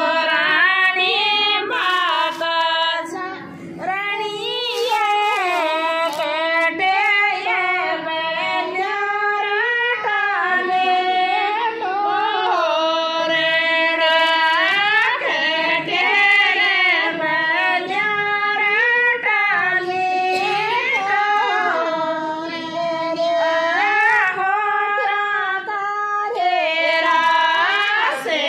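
Women singing a Rajasthani folk devotional song to Tejaji in high voices, with long held notes that bend and slide between pitches.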